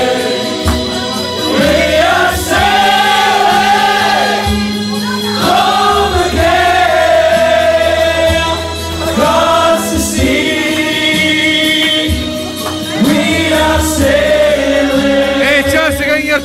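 A crowd of people singing along together to a song, over backing music with a steady bass line.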